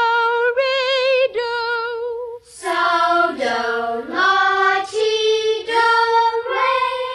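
A woman sings a few held solfège notes with vibrato, then about two and a half seconds in a group of children's voices sing the phrase back together.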